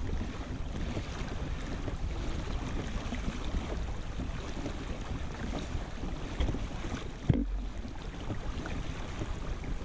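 Wind buffeting the microphone while choppy lake water splashes against a kayak; a single knock on the boat about seven seconds in.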